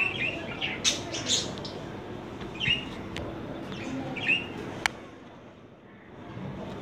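Pet budgerigars giving short chirps a few times, with several sharp clicks in between.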